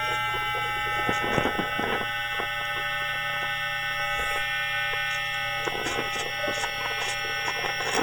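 Electromagnetic pickup-coil recording of a London Underground 2009 Tube Stock's IGBT inverter equipment: a buzzing hum of many tones held at an unchanging pitch, broken by scattered crackling clicks.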